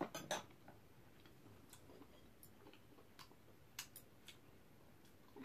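Faint, irregular light clicks of metal chopsticks and tableware against dishes, with two slightly louder clicks at the start, in near silence.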